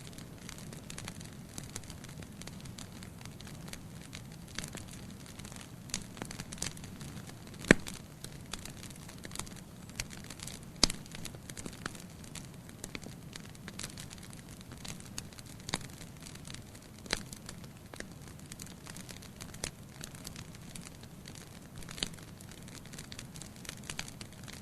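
Wood fire in a fireplace crackling, with irregular sharp pops, the loudest about eight and eleven seconds in, over a low steady noise of the burning logs.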